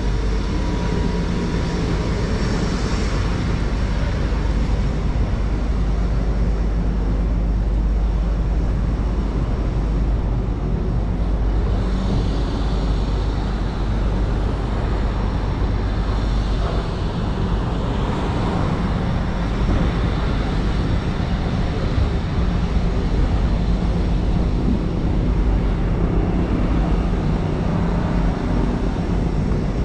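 Busy city street traffic noise: a steady mix of passing vehicles and engines with a constant low rumble.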